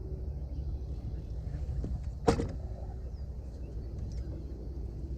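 Steady low wind rumble on the microphone over open water, broken about two seconds in by one sharp knock on the boat. Faint bird chirps are heard now and then.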